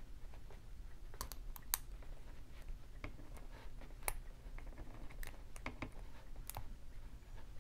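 Small, irregular metallic clicks of a steel lock pick tapping and lifting the pins inside a brass-bodied Wilson Bohannon padlock during single pin picking. The clicks are sparse, a few seconds apart at most, with two sharper ones about one and a half and four seconds in.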